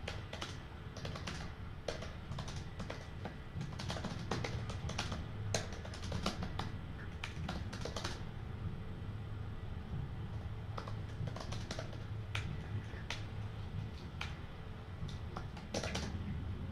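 Typing on a computer keyboard: irregular runs of key clicks, thickest in the first half and again near the end, over a low steady hum.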